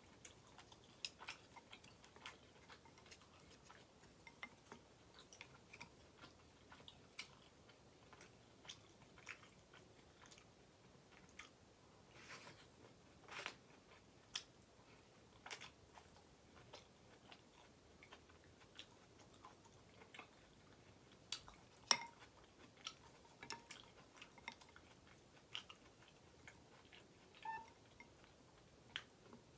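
Close-up mouth sounds of a person eating ramen noodles: quiet chewing with scattered wet clicks and smacks, one every second or so, and a sharper click about two-thirds of the way through.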